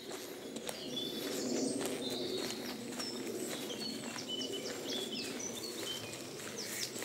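Wild songbirds singing in riverside woodland: many short chirps and quick whistled notes overlapping, over a steady low rushing sound.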